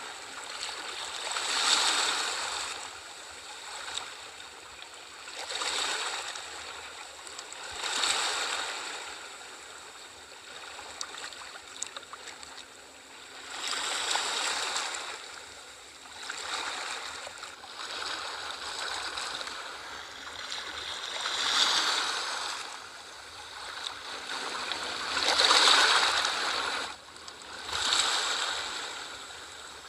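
Sea waves washing in one after another, each rising to a hissing surge and falling back every few seconds.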